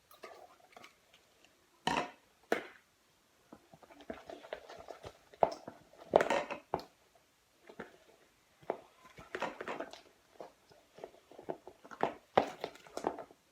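A spoon stirring thick, sticky slime in a bowl, with irregular squelches and scrapes.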